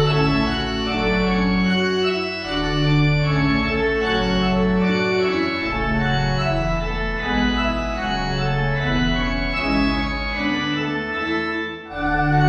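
Organ playing a slow run of sustained chords over a deep bass line, the chords changing every second or two. Near the end it breaks off briefly and comes back in on a new chord.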